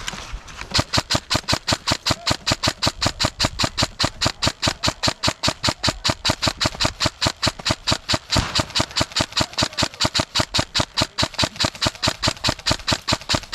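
An airsoft gun firing a long, unbroken stream of sharp, evenly spaced shots, about five a second.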